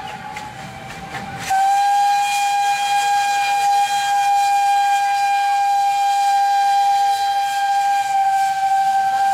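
Steam locomotive whistle sounding one long, steady blast. It is fainter for about the first second and a half, over a low rumble, then comes back at full strength and is held.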